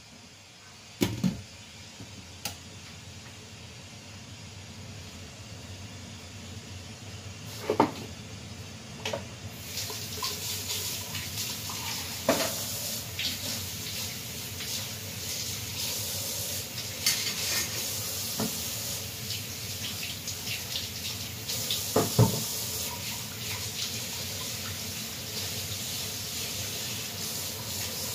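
Pots boiling on a gas hob: bubbling and a hiss of steam that grow louder about ten seconds in, with a few sharp pops.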